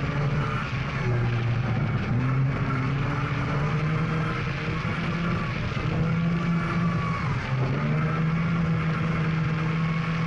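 GAZ Volga rally car's engine running hard under full throttle on a gravel stage. Its note dips at gear changes about a second in and again near eight seconds, then climbs back up.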